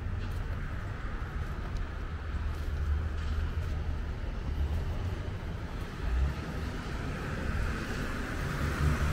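Wet downtown street ambience: rain and the hiss of traffic on wet pavement, with an uneven low rumble of wind buffeting the microphone. The hiss grows a little louder near the end.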